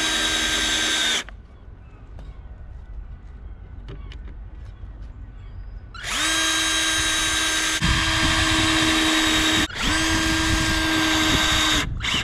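Porter-Cable cordless drill driving screws through wooden seat slats: the motor whines at a steady pitch in three runs, the first short, then a few seconds of quiet with faint clicks, then two longer runs split by a brief pause.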